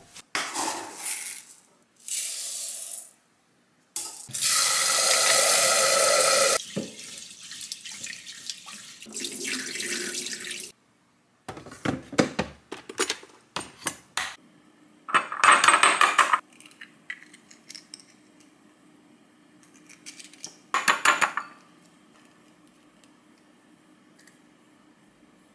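Kitchen sounds in short cuts. The loudest is a tap running into a sink for a couple of seconds. Later come a run of clicks and knocks as the inner pot of an electric rice cooker is handled, and a few more loud bursts of noise before it goes quiet near the end.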